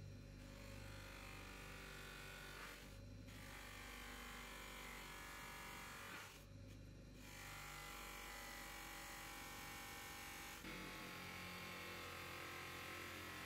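Bench grinder running with a cloth buffing wheel, its motor humming steadily, while a steel wrench is held against the spinning wheel for polishing, making a steady rubbing noise. The rubbing breaks off briefly twice as the wrench is lifted and repositioned.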